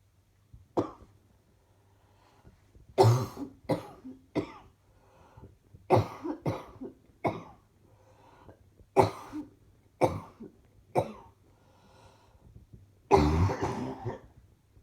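A woman coughing in fits: one cough about a second in, then bursts of several quick coughs in a row, with the longest and loudest fit near the end. A faint low hum runs underneath.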